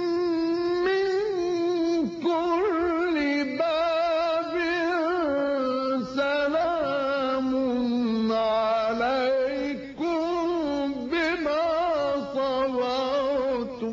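Solo male voice reciting the Quran in the melodic, ornamented tajweed style, drawing out a long chanted phrase with wavering pitch. There are brief pauses every few seconds, and the voice stops sharply near the end.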